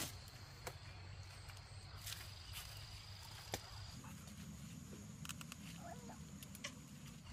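Faint outdoor ambience: a thin, steady high-pitched whine over a low hum, with scattered light clicks and taps, the sharpest one right at the start. About four seconds in, the whine jumps higher.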